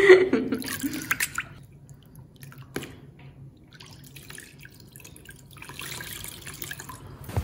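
Water dripping and splashing as a cleaning cloth is rinsed and wrung out, with a longer spell of trickling water near the end.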